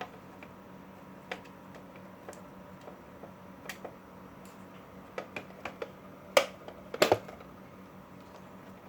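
Small clicks and taps of a screwdriver and screws on a computer power supply's case as it is being opened: a few scattered ticks, then a louder clatter of several knocks about six and a half to seven seconds in.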